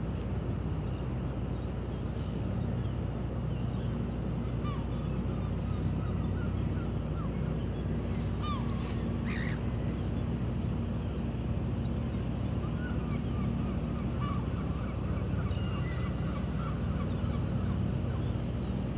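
Steady low drone of ship or harbour machinery carrying across the water, with scattered short bird calls over it.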